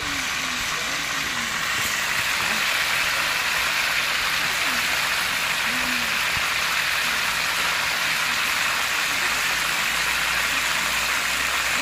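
Fish frying in a pan of hot oil: a steady, even sizzle of bubbling oil.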